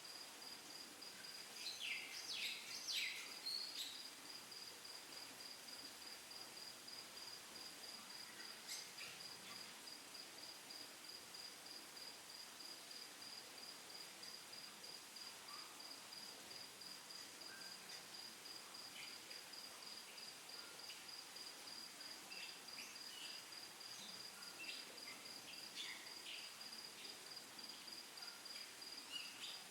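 A cricket chirping in a steady, high, evenly pulsed trill, faint throughout. A burst of short bird chirps comes about two to four seconds in, with a few scattered faint chirps later.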